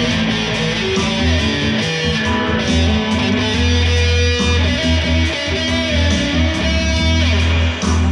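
Electric guitar playing, strummed and picked notes, over steady low bass notes.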